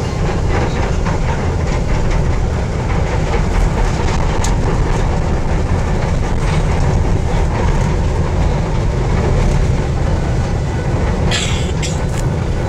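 Manila MRT Line 3 light-rail train running along elevated track, heard from inside the car: a steady, loud rumble of wheels and running gear on the rails. A brief hiss comes near the end.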